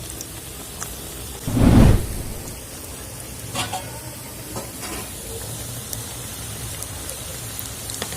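Strips of goja dough frying in moderately hot oil in a kadai, with a steady soft sizzle. About a second and a half in there is one loud, dull thump, and a few light clinks follow later.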